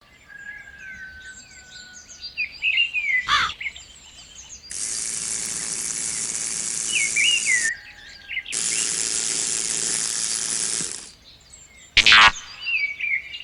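Small birds chirping and twittering. Two long stretches of steady rushing noise with a low hum start and stop abruptly and are the loudest sound, and there are two brief sharp swishes.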